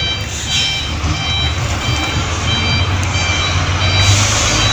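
Heavy construction machine's reversing alarm beeping repeatedly over its diesel engine running steadily.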